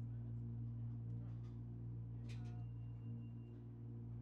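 Steady low hum inside a stationary train carriage, with a faint high tone briefly over it a little past the middle.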